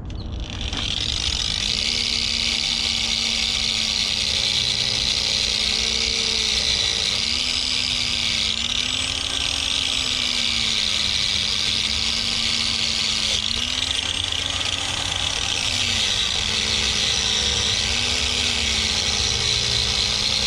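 Handheld electric grinder running continuously against metal, cleaning a wheel hub; its motor pitch sags and recovers again and again as it is pressed on and eased off.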